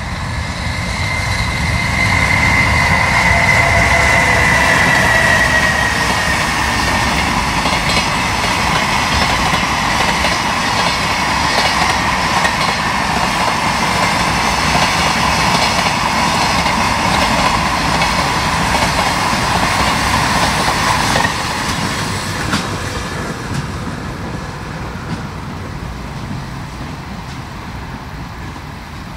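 EH500 electric freight locomotive passing with a high electrical whine that falls slightly in pitch, followed by a long string of container flat wagons rumbling and clacking over the rail joints. The wheel noise drops off suddenly about three-quarters of the way through as the last wagon goes by, and the train fades away.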